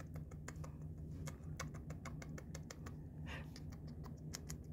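Light, irregular clicking and scratching from a cat playing on a rug, several ticks a second, over a low steady hum.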